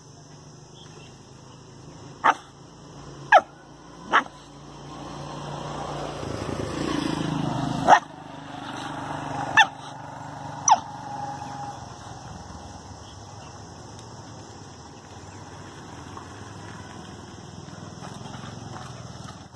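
Young dog barking at its own reflection in a mirror: six short, sharp barks, each dropping in pitch. A low rumble swells for a couple of seconds before the loudest bark, about eight seconds in.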